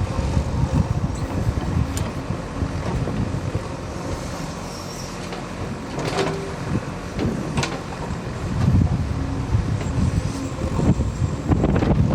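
Backhoe loader's diesel engine running steadily, with a few short knocks from the machine and wind buffeting the microphone.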